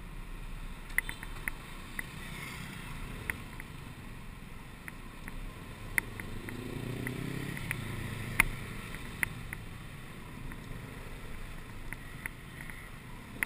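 Muffled, steady road and traffic noise heard from a moving vehicle, with sharp ticks scattered through it. A low engine sound swells and fades about six to eight seconds in.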